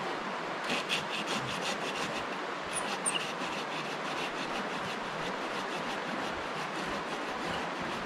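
Steady rush of running river water, with a quick series of scraping strokes during the first three seconds.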